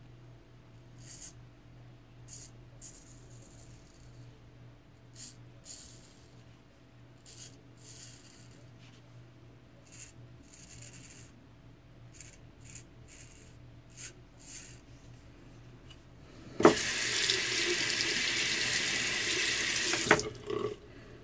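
A J.A. Henckels straight razor scraping through lathered beard stubble in a series of short strokes. Near the end a tap runs into a sink for about three and a half seconds, starting and stopping abruptly.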